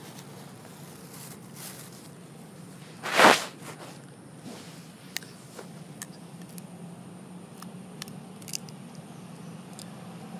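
A macaque biting and chewing a hard piece of food, heard as scattered small crackles and clicks, over a steady low hum. A short, loud burst of noise comes about three seconds in.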